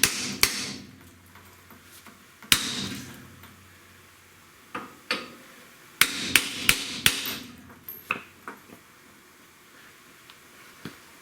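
Hammer blows on metal, each sharp and ringing briefly: a couple at the start, a single hard blow about two and a half seconds in, a quick run of four about six seconds in, then a few lighter taps.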